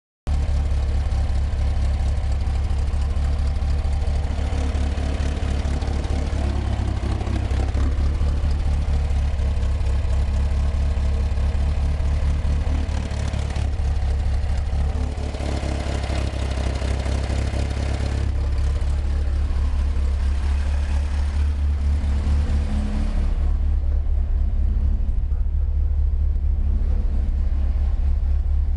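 Air-cooled Volkswagen flat-four engine running, with a strange rapid tapping like a drummer's sticks coming from the right-hand side of the engine. The tapping is clearest over the first twenty seconds.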